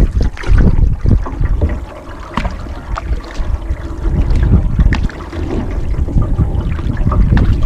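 Wind rumbling on the microphone over open water, with irregular sharp knocks and splashes from canoe paddling.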